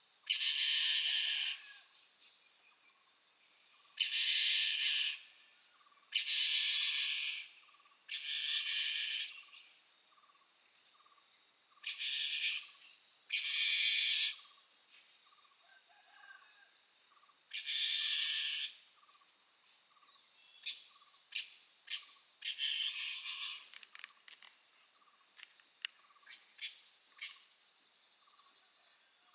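Mountain bamboo partridge calling in loud, noisy bursts about a second long, eight of them a few seconds apart, with a scatter of short sharp notes in the last third. A steady high insect whine runs behind.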